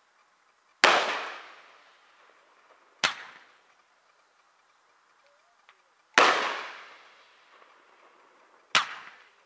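Four aerial firework shells bursting a few seconds apart. Each is a sharp bang followed by a rolling echo that fades over a second or two. The first and third bangs are the loudest.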